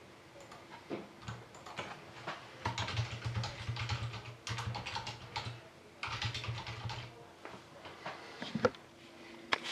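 Typing on a computer keyboard: irregular runs of quick key clicks with short pauses, then a couple of sharper single clicks near the end.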